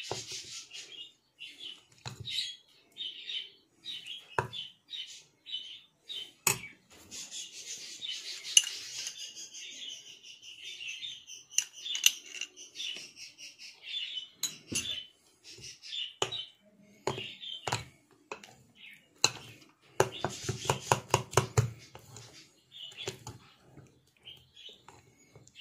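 Metal spoon clinking and scraping against a ribbed glass bowl while stirring thick batter, with a quick run of clinks a few seconds before the end. Birds chirp in the background.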